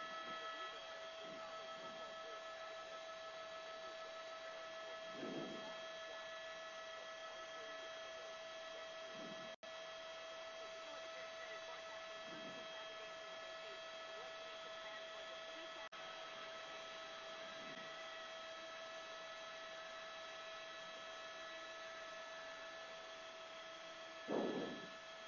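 Faint steady electrical hum with several high steady tones over light hiss, like a radio or intercom feed with no one talking. A few soft low bumps break in, the loudest near the end, and the sound drops out for an instant twice.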